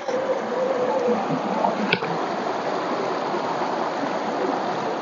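Mountain stream rushing over stones: a steady wash of water noise, with one light click about two seconds in.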